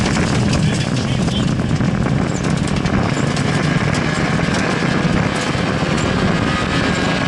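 Fiat Cinquecento rally car's engine running hard at speed, with road noise, heard from inside the cabin.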